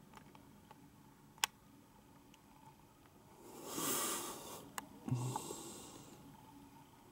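Quiet room tone broken by two short breathy hisses close to the microphone, the louder about halfway through and a weaker one just after, with a few faint clicks.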